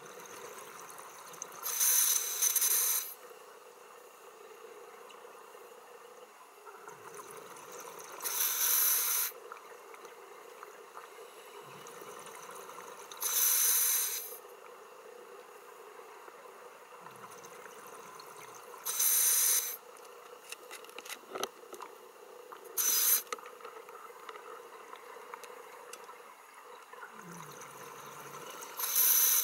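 Scuba diver breathing through a regulator underwater: six bursts of exhaled bubbles, each about a second long and roughly five seconds apart, with fainter inhalations between them. A steady hum runs underneath.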